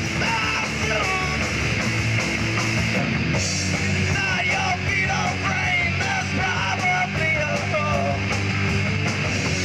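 Live punk rock band playing: distorted electric guitars, bass and drums, with a shouted vocal line over them.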